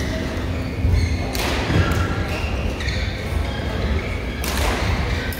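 Badminton play on an indoor court: a few sharp racket hits and knocks, two standing out about a second and a half in and near the end, with footfalls and short shoe squeaks on the court mat, over a steady low hum in a large echoing hall.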